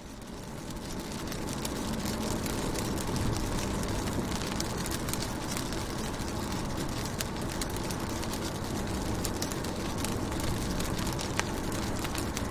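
Rain falling on a car window: a steady hiss with a low rumble, dotted with sharp taps of individual drops. It swells up from near silence over the first couple of seconds.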